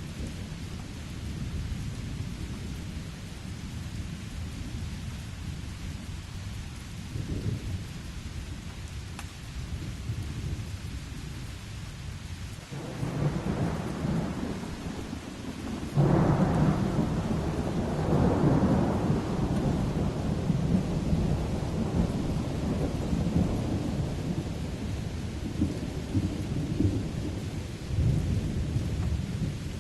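Steady rain with a low rumble of thunder. About halfway through, a loud thunderclap breaks in and rolls on for several seconds before fading, with a smaller rumble near the end.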